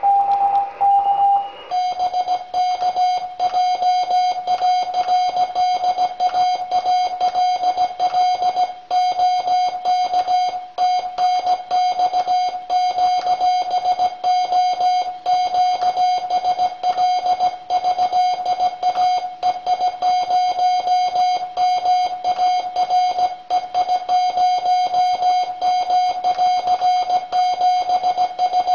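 Morse code (CW) on amateur radio: a single steady beep keyed on and off in quick dots and dashes. About two seconds in the note drops slightly in pitch and keying carries on without a break.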